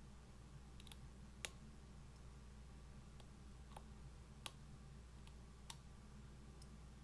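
Light, sharp clicks from a lock pick and tensioner working the pin tumblers of a clear acrylic practice lock, scattered irregularly with two louder clicks. The clicks are the pins being lifted and setting at the shear line.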